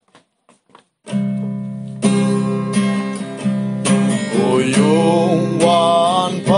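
Acoustic guitar strumming the opening chords of a song, which ring on, after three faint ticks. A voice starts singing the first line about four seconds in.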